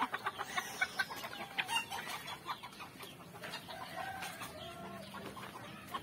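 Chickens clucking, with a longer drawn-out call from about three to five seconds in.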